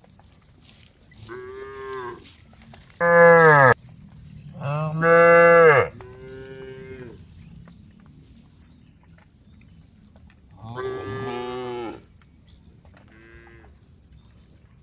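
Cows in a herd mooing, about six separate moos from several animals, the two loudest a few seconds in, with fainter ones between and later.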